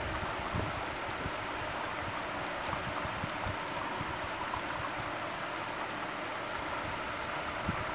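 Heavy rain falling in a steady downpour during a thunderstorm.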